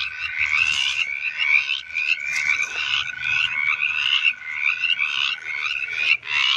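A chorus of mountain chorus frogs calling: many overlapping short rasping calls, each rising in pitch, repeating several times a second. Beneath them runs a thin steady tone that stops about six seconds in.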